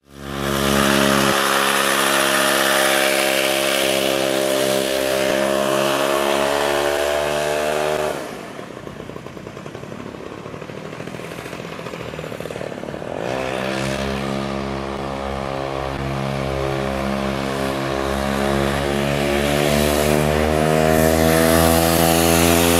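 Homelite 240 40 cc two-stroke chainsaw engine driving a converted stand-up scooter through a chain and jackshaft, running at high revs as a steady drone. About eight seconds in it turns fainter and rougher for about five seconds, then comes back louder and climbs slowly in pitch.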